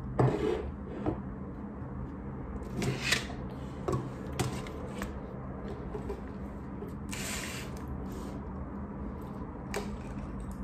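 Things being handled on a desk: a string of brief knocks, clinks and scrapes as a plate, cup, coaster and keyboard are set down and slid into place, with one longer scrape a little past the middle.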